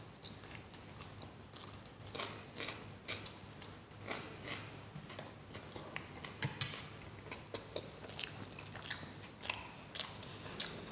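Close-up chewing of mouthfuls of paratha with raw onion slices and chutney: irregular wet crunches and mouth clicks, several a second from about two seconds in.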